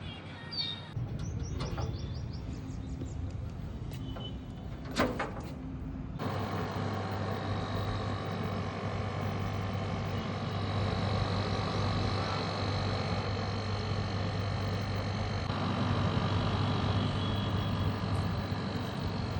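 Air conditioner outdoor unit running with a steady hum and a few steady higher tones over it, presumably with the new fan motor fitted. Before that come a few clicks and one sharp knock about five seconds in.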